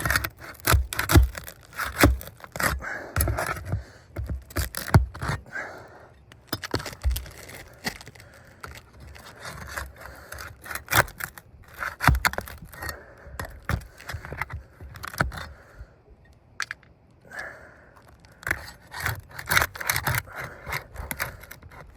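A pry tool scraping and clicking against roof shingles and their nails as the nails are pried up and the shingle is worked loose: irregular scrapes and sharp clicks.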